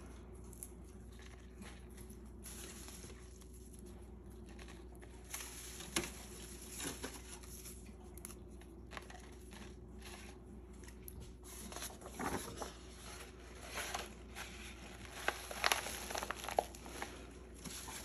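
Light rustling and crinkling of leaves, flower petals and paper being handled and pressed into place by hand, with scattered small taps, busier in the second half.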